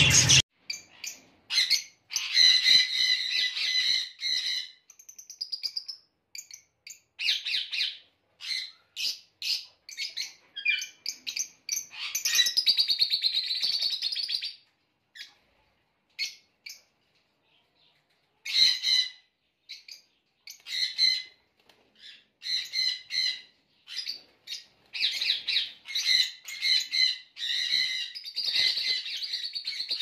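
Caged budgerigars and cockatiels chirping in short bursts with brief gaps between them. About twelve seconds in there is a longer run of rapid warbling, then a pause of a few seconds before the chirping resumes.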